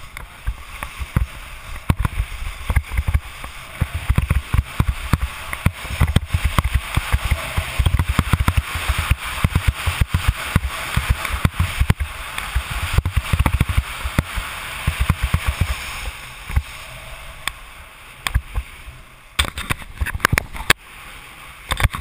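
Skis running fast on groomed snow: a steady hiss and scrape from the edges, with wind buffeting on the microphone in low rumbling gusts. It quietens over the last few seconds.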